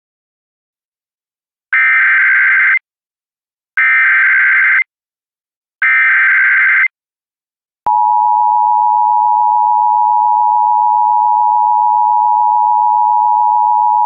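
Emergency Alert System broadcast start: the digital SAME header sounds as three one-second bursts of screechy data tones, about a second apart. About eight seconds in, the steady two-tone EAS attention signal (853 and 960 Hz together) begins. Together they announce an emergency alert, here a fire warning with an immediate evacuation order.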